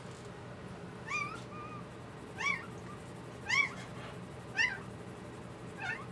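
Newborn poodle puppies squeaking: about five short, high-pitched cries that rise and fall, roughly one a second.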